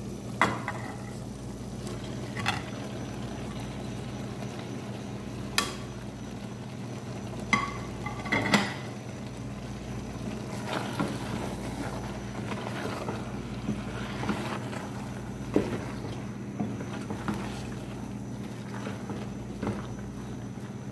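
A spatula stirring chopped purslane into lentils in a cooking pot, knocking and scraping against the pot several times, over a steady low hum.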